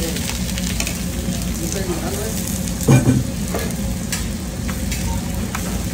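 Steak and masa picadas sizzling on a flat-top griddle while a metal spatula scrapes and clicks on the steel, with a steady hum underneath. One louder knock and clatter about three seconds in.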